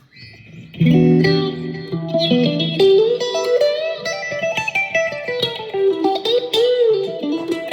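Electric guitar played through the phaser patch of a Korg ToneWorks AX3000G multi-effects pedal. A chord is struck about a second in, then a single-note lead line with pitch bends and vibrato rings on past the end.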